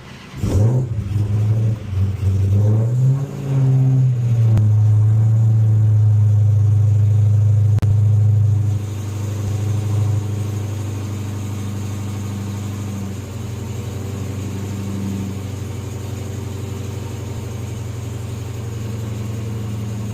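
Supercharged Hellcat V8 with a 3.8 L Whipple blower, revved up and down a few times, then held steady and loud for several seconds before dropping back to a quieter steady run about nine seconds in, as the engine is exercised for tuning.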